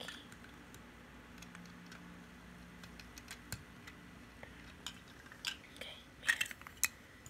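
Plastic Lego Duplo bricks and train cars clicking and knocking together as they are handled, with a few sharper, louder clicks near the end.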